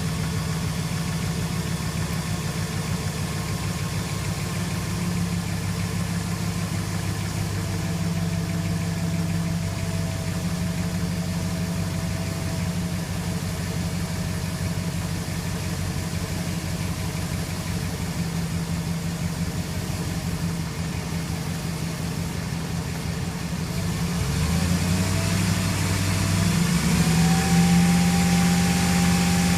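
2006 Jeep Commander's 4.7-litre SOHC V8 idling steadily, shortly after being started. Near the end the engine speed steps up twice and it runs faster and louder.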